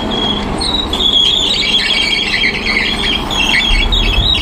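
Shrill, uneven metallic squealing from a Volvo EC210B crawler excavator at work, over the low, steady running of its diesel engine.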